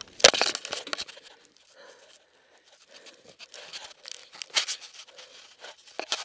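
Knocks and crackling scrapes of a trail camera being jostled and rubbing against dirt and gear, with a sharp knock about a quarter second in. After a quiet stretch, scattered clicks and rustles come back near the end.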